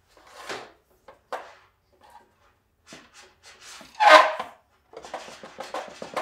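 Thick rubber-jacketed power cord being pulled by hand through a steel machine stand, rubbing and scraping against the metal in short strokes. The loudest rub comes about four seconds in, followed by a quick run of rubs near the end.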